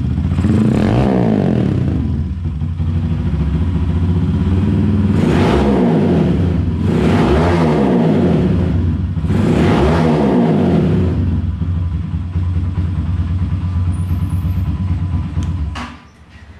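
Modified Rusi Classic 250's single-cylinder four-stroke engine (ported and polished, high compression, 30 mm carburettor, reground cams) revved through an aftermarket exhaust: four throttle blips that climb and fall back, with idle in between. The engine is switched off near the end.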